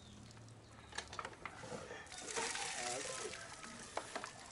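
Hand-lever manual diaphragm pump being stroked, with clicks and knocks from its lever linkage and a surge of water gushing out a little over two seconds in, lasting about a second.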